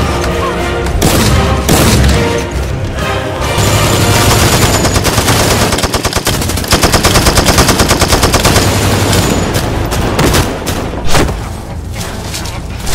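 Automatic rifle gunfire from several guns: a few separate shots first, then a long run of rapid bursts through the middle, over background music.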